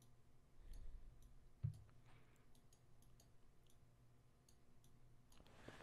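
Near silence with faint scattered clicks and a soft knock about 1.7 s in, from a stylus tapping on a drawing tablet while writing.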